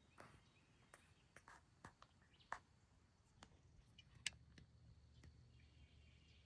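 Near silence with scattered faint clicks and rustles, two of them sharper, about two and a half and four seconds in, over a faint low hum.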